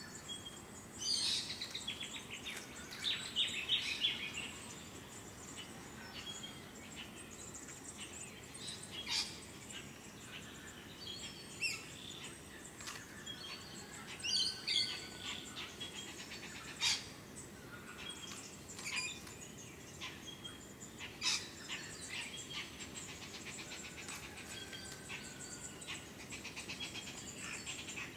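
Wild birds calling: many short chirps and sharp whistled notes, scattered irregularly and now and then several together, over a faint steady background hiss.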